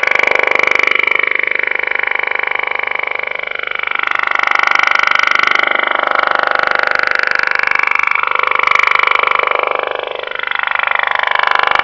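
Unidentified warbling signal on 27.555 MHz upper sideband, heard through an 11-metre radio receiver: steady tones with wandering, wavering pitches and a rapid pulsing, all squeezed into the narrow radio audio band. It dips in level briefly twice.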